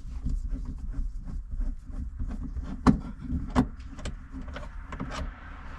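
A screwdriver working a trim screw out by hand in a car's interior, making scattered small clicks and scrapes with two sharper clicks about three seconds in, over a low steady hum.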